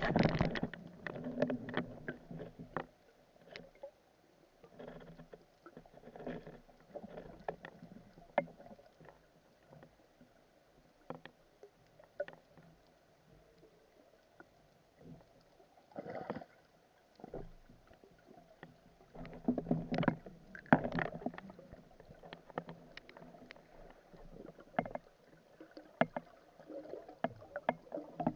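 Water sloshing and splashing with many scattered sharp clicks and knocks, in louder bouts at the start, about two-thirds of the way through, and again a few seconds later.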